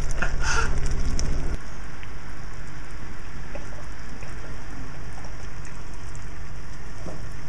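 Sugar syrup for hard toffee boiling in a small saucepan, a steady bubbling hiss; it drops slightly in level about one and a half seconds in.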